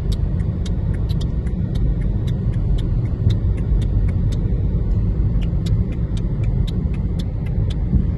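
Car driving along a highway: steady low road and engine rumble, with light high ticks about three a second.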